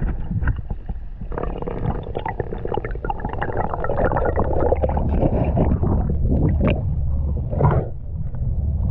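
Water gurgling and bubbling as heard underwater, over a steady low rumble, with a long surge of gurgling through the middle and two shorter ones near the end.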